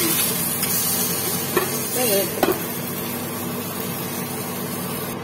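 Fish sizzling as it fries on a dosa griddle, while a metal spatula scrapes and clicks against the pan, lifting the pieces out. Two sharp clicks come about one and a half and two and a half seconds in.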